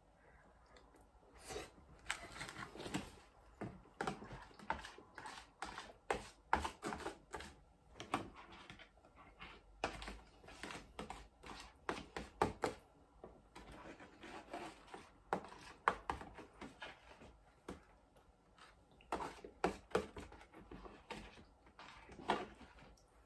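A metal fork scraping and clicking against an aluminium foil food tray: an irregular run of sharp taps and short scrapes as the tray is scraped out.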